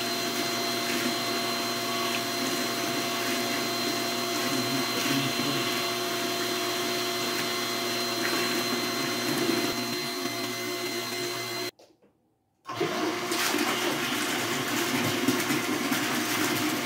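Small electric water pump running steadily under an automatic pump controller, with water rushing through a recirculation loop of pipework: a steady machine hum with a few constant tones over a water-flow hiss. It cuts out completely for about a second some twelve seconds in, then carries on unchanged.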